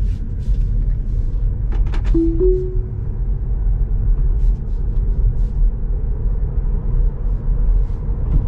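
Low road and tyre rumble inside a Tesla's cabin as the car speeds up from a stop. About two seconds in come a couple of clicks, then a short two-note rising chime, which is the car's Autopilot engaging.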